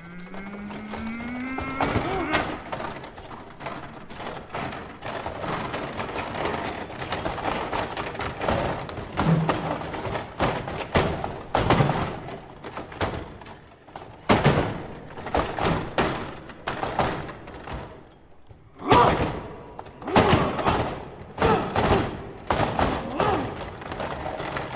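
Foosball table in fast play: a dense, irregular clatter of sharp knocks from the spinning rods, plastic players and ball striking the table, with a brief lull about three-quarters of the way in before the hits resume loudly. A rising pitched tone sounds over it in the first two seconds.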